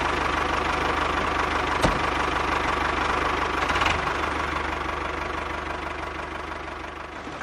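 Mini toy tractor running steadily with an engine-like putter, a fast even low pulse, while it pulls a four-furrow plough through sand. There is a single click about two seconds in, and the sound fades slowly toward the end.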